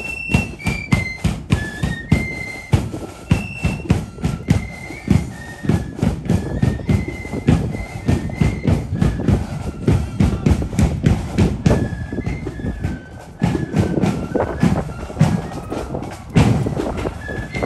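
Marching flute band playing a tune: flutes carry a high melody over a steady, driving beat of drums.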